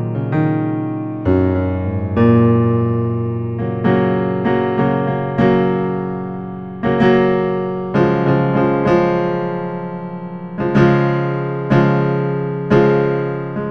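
Slow piano music: single notes and chords struck every second or so and left to ring and fade.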